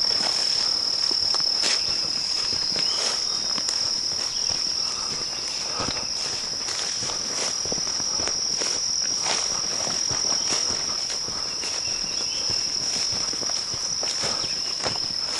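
A continuous, steady high-pitched insect chorus, with irregular footsteps swishing through tall grass.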